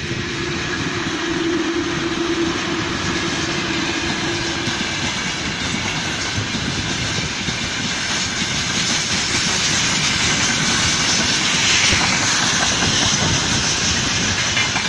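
VL11.8 electric locomotives and a long freight train of open wagons passing close by. A steady hum as the locomotive sections go past fades after about five seconds. The rolling rumble and rattle of the wagon wheels on the rails then carries on, with a hiss growing stronger in the second half.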